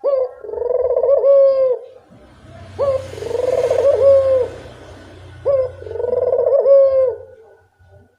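Barbary dove (burung puter) cooing in full song: three repeated phrases about every two and a half seconds, each opening with a sharp rising note, then a rolling, trilled coo that drops at the end. A faint low hum lies under the middle phrases.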